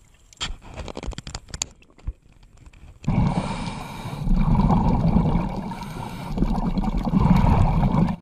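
Underwater camera audio: a few faint clicks and knocks, then a loud, uneven rush of water noise that swells and dips for about five seconds and cuts off suddenly at the end.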